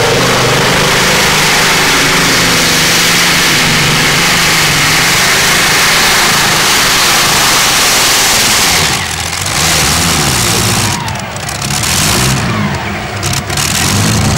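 Multi-engine modified pulling tractor running at full throttle as it drags the weight-transfer sled, a loud, dense engine noise. From about nine seconds in, the engine note drops and surges several times as the tractor comes off the throttle near the end of the pull.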